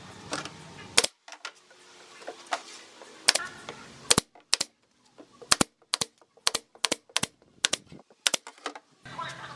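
Pneumatic brad nailer firing about a dozen sharp shots into a pine base board. The shots come a second or two apart at first, then roughly two a second over the last few seconds.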